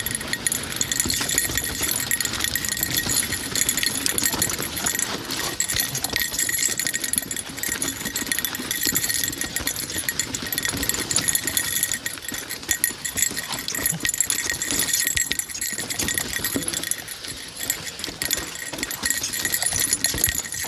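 Mountain bike clattering down a rock garden: a steady rattle of dense knocks and clicks as the tyres, chain and frame bang over the rocks.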